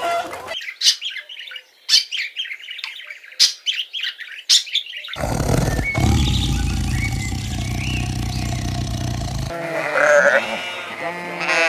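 A run of different animal calls, one after another. First come quick high chirps for about four seconds, then a low, loud call lasting about four seconds, and near the end a wavering pitched call.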